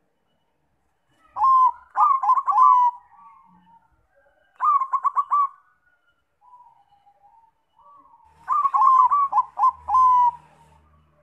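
Zebra dove (perkutut bangkok) singing: three bursts of quick staccato cooing notes, about a second in, near the middle and near the end, with soft low cooing between them.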